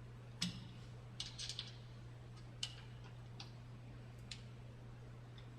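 Screwdriver working the master link off a steel step chain: scattered light metallic clicks, a quick cluster about a second in and single clicks roughly every second after, over a steady low hum.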